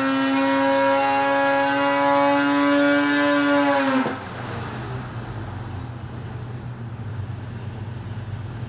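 Two-stroke 900 big-bore snowmobile twin (Arctic Cat Alpha-based) held at wide-open throttle on a dyno, its high note climbing slightly through the pull. About four seconds in the throttle is chopped and the pitch drops sharply, leaving a low rumble as the engine and dyno wind down at the end of the run.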